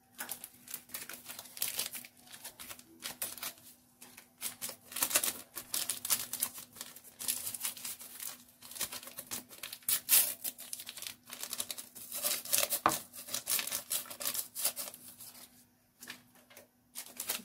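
Paper sachet of baking powder being crinkled and torn open: a long run of irregular sharp crackles, with short pauses.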